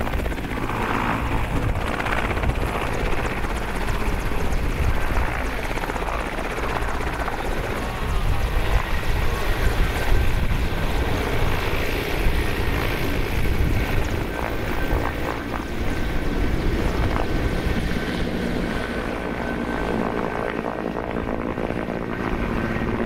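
Mi-8 military helicopter running: a steady rotor and turbine rumble with a faint high whine held throughout.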